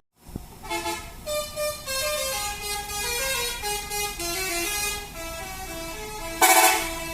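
Indonesian tour bus's telolet basuri musical horn playing a melody of quick-changing pitched notes, with a brief louder, harsher blast near the end.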